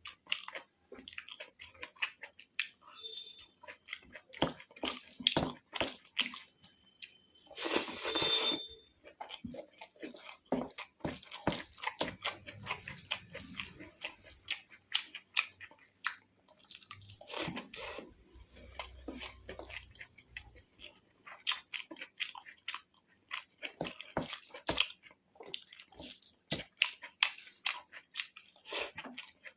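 Close-miked eating of rice and curry: chewing and biting with many irregular wet mouth clicks. About eight seconds in, a louder rushing sound lasts about a second.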